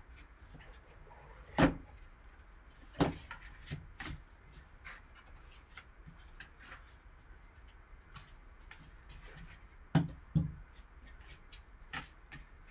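Gloved hands handling a cardboard trading-card box and its packaging: a handful of short, dull knocks as pieces of the box and its foam insert are moved and set down, with faint ticks and rustles of paper and card between them.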